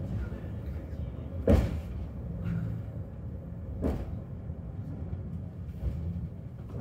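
Hakone Tozan funicular cable car running downhill with a steady low rumble, broken by two sharp clunks: a loud one about a second and a half in and a lighter one near four seconds.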